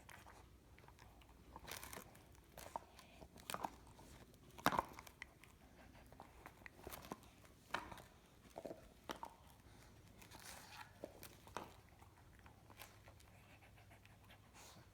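A dog crunching and chewing a hard biscuit, with irregular sharp crunches about once a second; the loudest comes about five seconds in.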